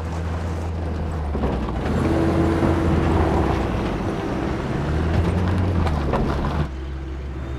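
A vehicle engine running with a steady low hum and road or wind noise, its pitch rising briefly about five seconds in. It drops suddenly in loudness near the end.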